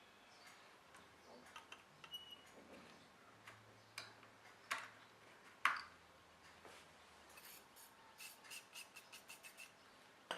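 Faint scattered clicks and taps of small metal parts of an opened hard drive being handled, with a few louder clicks midway and a quick series of about eight ticks near the end.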